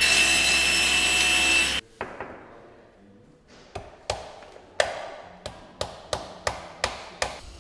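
A table saw cuts through a chipboard panel, its blade running with a steady high whine, then stops abruptly after a second and a half or so. A hammer follows, driving into a wooden frame: about ten sharp knocks at roughly three a second.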